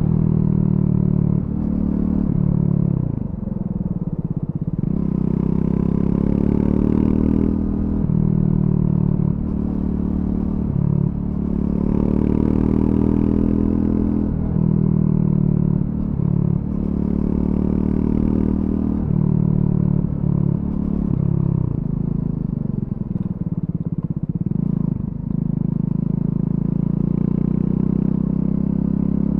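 Triumph Scrambler 400X single-cylinder engine through its stock exhaust, under way. The rider accelerates and backs off again and again, so the engine note climbs and then drops every few seconds.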